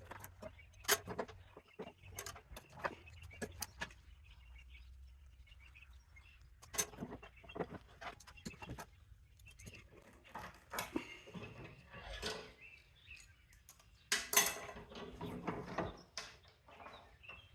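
Scattered sharp clicks and cracks of hand tools breaking apart plastic electrical plugs to get at the metal inside. A longer, louder rasping stretch comes near the end.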